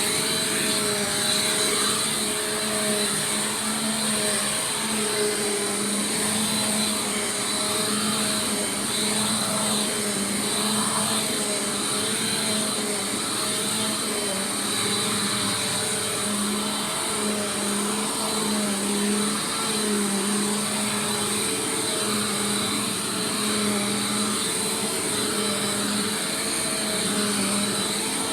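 Bissell PowerForce Compact Turbo upright vacuum cleaner running steadily, a motor whine over a rushing of air, its pitch wavering slightly.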